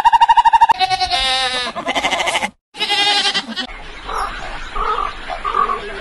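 A rapid pulsing call cuts off about a second in. Two loud, wavering animal calls follow, each about a second long, and then fainter calls.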